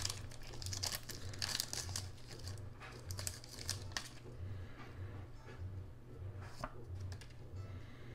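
Foil booster-pack wrapper of a Pokémon trading card pack being torn open and crinkled by hand, busiest in the first half, then lighter rustling with a few small clicks.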